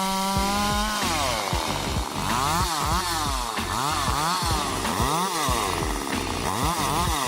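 Two-stroke chainsaw running at a steady pitch for about a second, then its pitch rising and falling over and over as it cuts through wood.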